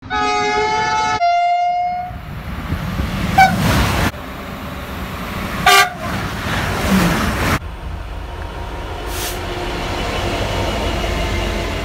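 A train's two-tone horn sounds for about two seconds, the higher note first and then a lower one. Short horn toots follow at about three and a half and six seconds. Between and after them is the steady rumble and wheel noise of passing trains, and the sound changes abruptly several times as one clip cuts to the next.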